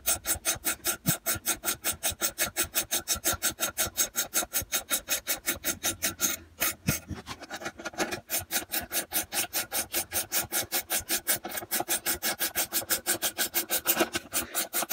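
Homemade bolt-and-socket puller being wound to draw the rubber out of a Lambretta engine-mount silent block bush: a rapid, even clicking and creaking, about five a second, with a brief break about six and a half seconds in.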